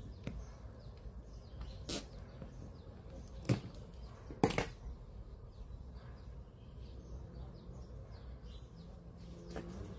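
A few sharp clicks or knocks, about two, three and a half and four and a half seconds in, the last the loudest. Faint birds chirp in the background.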